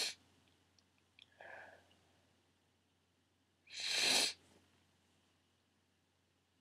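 A woman crying quietly, sniffling: a sniff ending just as it begins, a softer shaky breath about a second and a half in, and another loud sniff about four seconds in.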